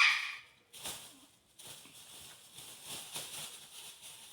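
Thin plastic bag rustling and crinkling as it is handled and filled, a crackle of small ticks. It opens with a loud, short high-pitched squeak or squeal.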